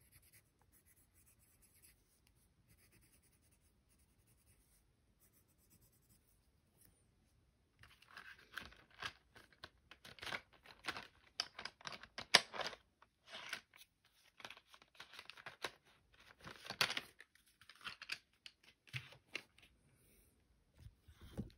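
Faint at first, then from about eight seconds in, irregular bursts of rustling and crinkling handling noise with a few sharper scrapes.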